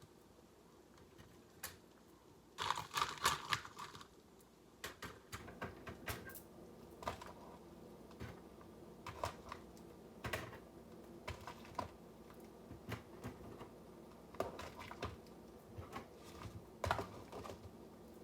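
Irregular light clicks and clinks of hard-boiled eggs and ice knocking against each other and a container, with a short burst of rattling about three seconds in.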